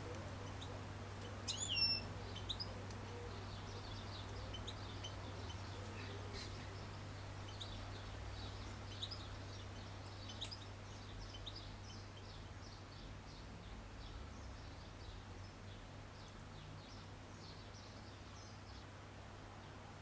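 European goldfinches twittering: a rapid run of short, high chirps that thins out near the end, with one louder, clearer call about two seconds in.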